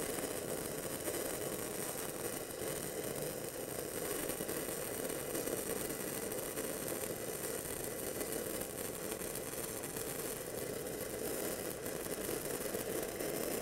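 Steady crackle and hiss of an E6010 stick-welding arc on a steel pipe. The rod is held tight in a short arc, but travel speed is too slow, which lets the weld fall in on the inside.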